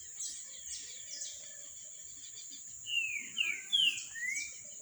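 A bird calling: four quick slurred whistled notes about three seconds in, over a steady high-pitched background tone.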